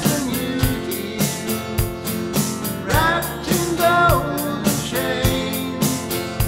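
Country-rock song with a steady drum beat and guitars; a voice sings a line about halfway in.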